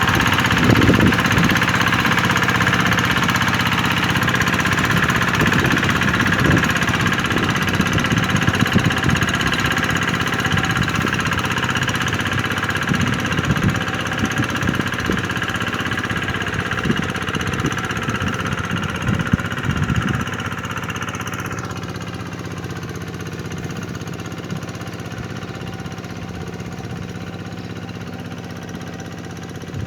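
Tractor engine running steadily, with irregular clattering knocks through the first two-thirds. About twenty seconds in the knocks stop, the sound loses its top end and gets quieter.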